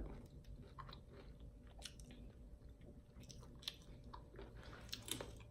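Quiet chewing of fried chicken, with scattered small crunches and mouth clicks.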